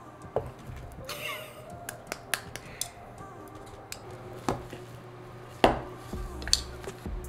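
Kitchen handling sounds while baking: scattered knocks and clinks of utensils against bowls and dishes, with a short scrape about a second in and the loudest knock about three-quarters of the way through.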